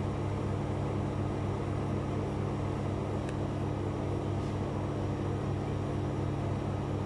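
Steady low machine hum with several held tones, from bakery equipment running. A faint click about three seconds in.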